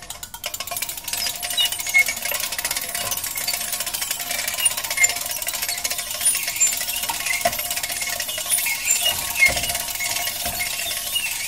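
Metal squeaking and rattling without a break: a dense run of fast small clicks, with brief high squeaks and a faint steady ringing tone underneath.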